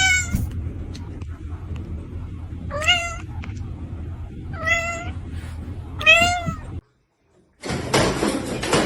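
A domestic cat meowing four times, short calls about a second and a half to two seconds apart, over a low steady hum. After an abrupt cut, a loud burst of rushing noise fills the end.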